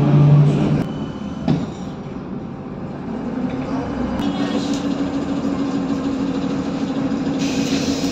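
Cabin noise of a VMZ-52981 trolleybus under way: road noise with the electric drive's low hum, which stops under a second in and returns as a steady hum from about three seconds in. A single knock comes about a second and a half in. Near the end the sound changes to outdoor street traffic.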